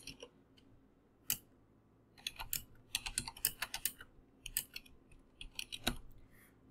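Typing on a computer keyboard: a single keystroke, then a quick run of keystrokes lasting a few seconds.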